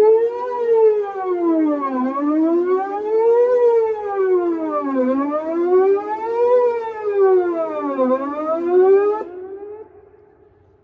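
Whelen electronic outdoor warning siren sounding a wail tone, its pitch rising and falling smoothly about once every three seconds. It stops about nine seconds in and the sound dies away over the next second.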